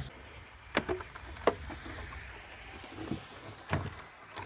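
About five sharp plastic clicks and knocks, spaced irregularly, from a Jeep Wagoneer's tail light assembly and its brittle fasteners being worked loose by hand.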